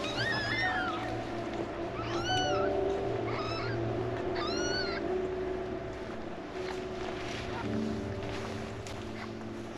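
Newborn kittens mewing: four short, high-pitched rising-and-falling cries in the first five seconds, then quiet, over soft background music.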